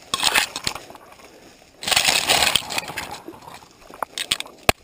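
Dry brush and bare twigs crackling and snapping as they are pushed aside by hand, in two bursts: one at the start and a longer one about two seconds in. A few sharp snaps follow near the end.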